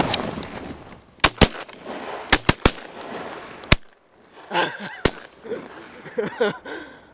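Volley of shotgun shots from several duck hunters firing at passing ducks: about seven sharp blasts, six packed into the span from about one to four seconds in and a last one about a second later.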